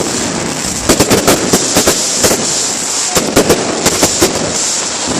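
Aerial fireworks display going off in a rapid barrage: many sharp bangs in quick succession over a continuous crackle.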